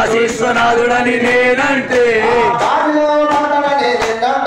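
A man singing a Telugu devotional song to Shiva into a microphone, in long held, wavering notes. Under the voice are a steady sustained musical tone and sharp taps at irregular intervals.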